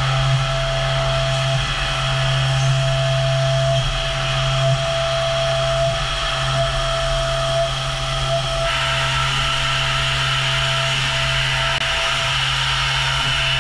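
Heller HF5500 CNC machining centre milling a metal block: a steady machine whine of spindle and cutter with a constant tone, the cutting noise shifting in pitch about nine seconds in.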